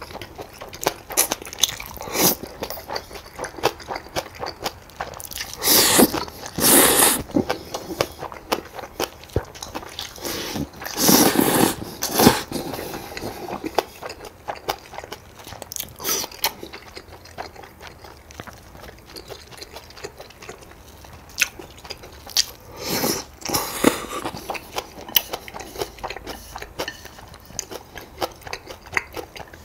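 Close-miked eating: steady chewing with many small wet mouth clicks and bites, and a few louder bursts of eating noise lasting about a second each.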